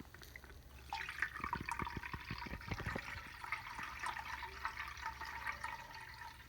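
Maple sap boiling in a pan, a dense bubbling and crackling that starts about a second in, over a low steady hum.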